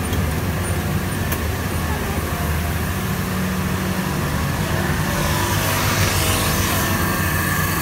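Steady hum and hiss of running factory production machinery, the machines on a paper-fed line. A louder rushing hiss swells about five seconds in and fades about two seconds later.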